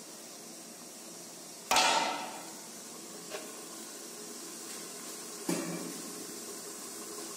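Aluminium pot lid clanking onto a cast-iron pan: one loud metallic clank with a short ring about two seconds in, a light tick, then a second, duller clank near the end.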